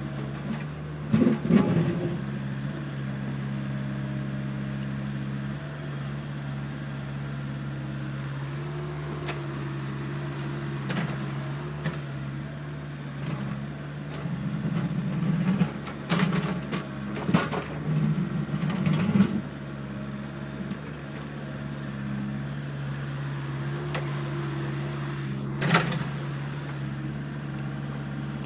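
Diesel engine of a heavy earthmoving machine running steadily at low revs. Scattered sharp knocks and clanks fall over it: one shortly after the start, several in the middle, and a single sharp one near the end.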